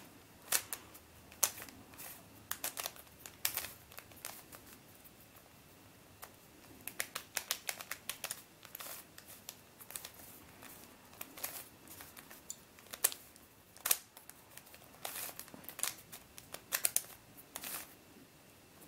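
Plastic clicking and clacking of a GuoJia Square-1 puzzle being twisted and flipped as it is scrambled: irregular runs of sharp clicks with short pauses between them.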